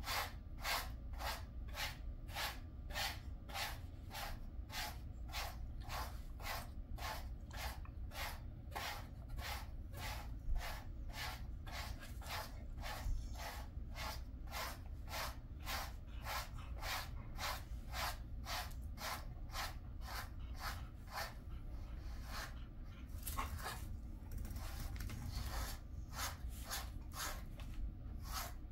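Pet grooming brush raking through a Jindo dog's thick double coat in even, brisk strokes, about two a second, each a short scratchy swish.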